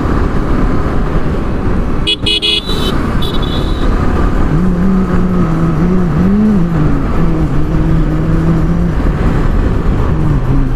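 Riding a Yamaha R15 V4 motorcycle through town traffic: a steady rush of wind and engine noise, with a vehicle horn sounding twice, briefly, about two to four seconds in. A low humming tone that wavers in pitch runs through the middle.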